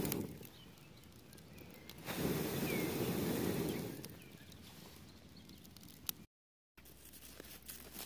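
Wood campfire crackling, with scattered sharp pops. A low rumbling rush of wind on the microphone covers it at the very start and again from about two to four seconds in. The sound drops out briefly a little after six seconds.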